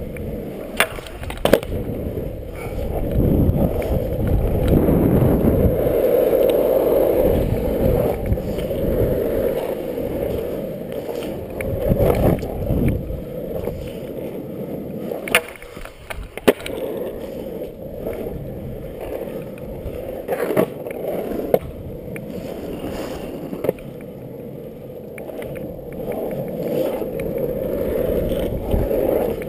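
Loaded Dancer longboard's wheels rolling on asphalt: a steady rumble that swells and eases, with a few sharp clicks here and there.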